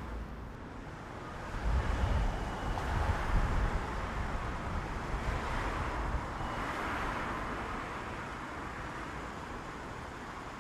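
Outdoor street ambience: a broad rushing noise, like wind and passing traffic, that swells about two seconds in and eases off near the end, with low rumbling underneath.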